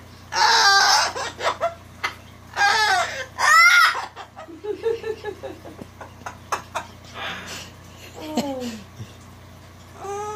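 White cockatoo making laugh-like calls in short bouts, mimicking a human laugh, with a harsh squawk about half a second in.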